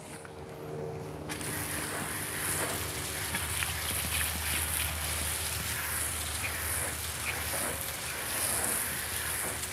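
Water spraying from a garden hose pistol nozzle onto a car's tire and alloy wheel, a steady hiss that starts about a second in. It is the pre-rinse that wets the wheel down before degreasing.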